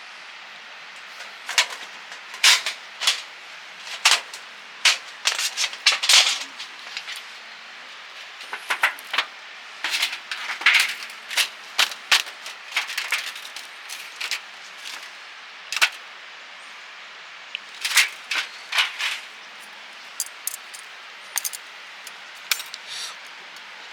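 Wood fire crackling in a fire pit: irregular sharp pops and snaps, some in quick clusters, over a faint steady hiss.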